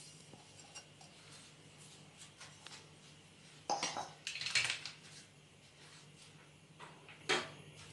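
A few short clinks and clatters of a spoon against a glass mixing bowl as sugar is spooned in: a cluster about four seconds in and one more near the end, over a faint steady hum.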